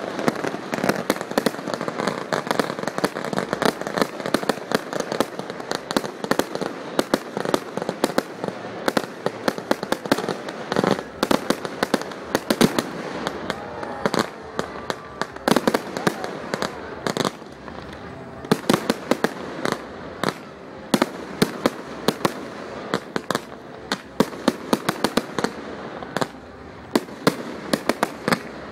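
Fireworks display: aerial shells bursting in a rapid, irregular run of sharp bangs with crackling between them.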